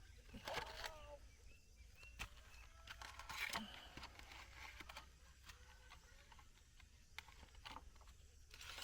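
Near silence outdoors, broken by a few faint, scattered knocks and clicks.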